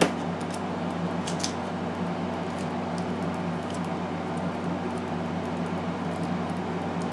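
Steady low hum of room machinery, with a few faint light clicks near the start and about a second and a half in.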